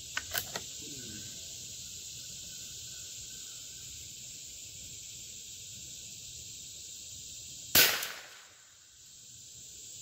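A single .22LR shot from a Howa M1100 bolt-action rimfire rifle about three quarters of the way through, a sharp crack with a short tail, over steady chirping crickets. A few light clicks sound near the start.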